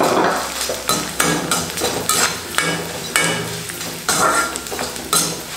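Corn flakes frying in shallow oil in an aluminium kadhai, with a burst of sizzle as they go into the oil at the start. A steel slotted spoon scrapes and clinks against the pan again and again as the flakes are stirred.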